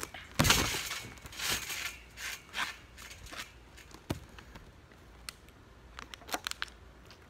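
A crinkly plastic snack wrapper handled and squeezed close to the microphone: a loud rustle just after the start, then scattered crinkles and sharp clicks that grow sparser and quieter.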